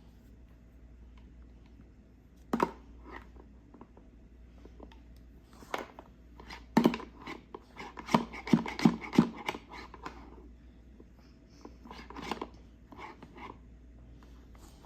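Plastic Play-doh toy tools being handled: scattered clicks and knocks, with a busy run of rapid knocks in the middle and a few more near the end.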